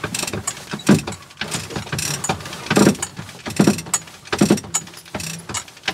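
Sailboat winch being cranked by hand to hoist the mainsail on its halyard, the ratchet clicking in repeated surges a little under a second apart with each turn of the handle.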